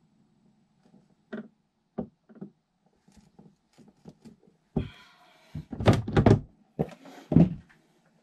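Knocks and thuds of a hard plastic bag-holder tube being handled against a wooden cabinet wall and lifted off its mounting screws. A few light knocks come first, then a brief scrape and a cluster of louder thuds about five to seven and a half seconds in.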